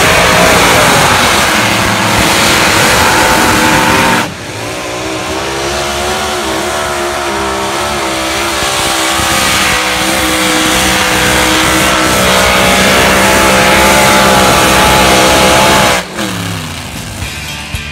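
Competition pulling-vehicle engine running very loud at full power under load, its pitch wavering. About four seconds in the sound cuts abruptly to another engine pull, and near the end the engine winds down with falling pitch.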